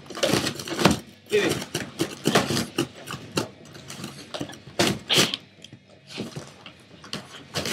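A Boston Terrier tearing at a cardboard box with its teeth: irregular bursts of ripping and crunching cardboard.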